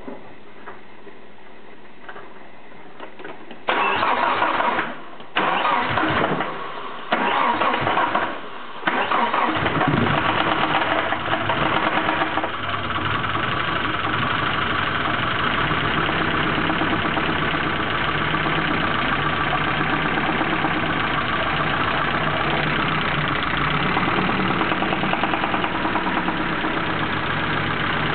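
Nissan 240SX's KA24E 2.4-litre four-cylinder engine being started: the starter cranks in three separate bursts, the engine catches about nine seconds in, revs briefly and settles into a steady idle. The idle carries the noise the owner suspects may be the lifters.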